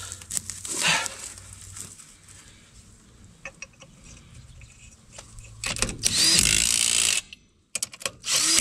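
A handheld power tool runs in two bursts of about a second and a half each, near the end. Each starts with a rising whine as the motor spins up. They are preceded by a few light knocks and clicks of work on the truck.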